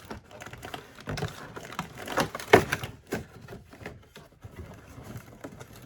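Cardboard advent calendar door being pried open and the contents handled, making irregular clicks, taps and crinkles. The sharpest snap comes about two and a half seconds in.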